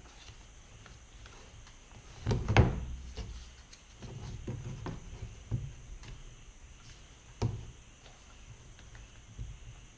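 A body-filler spreader scraping and knocking against a clipboard mixing board as filler is worked, with a louder clatter about two and a half seconds in and several softer knocks after.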